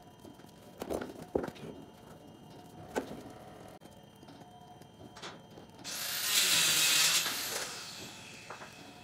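Metal fibreglass roller rolling over wet resin and glass mat, with a few sharp clicks and knocks from the roller in the first few seconds. A loud rushing burst lasting about a second and a half comes about six seconds in.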